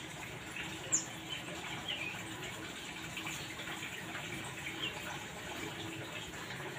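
Steady rushing background noise with a few short high chirps, the loudest a quick falling one about a second in.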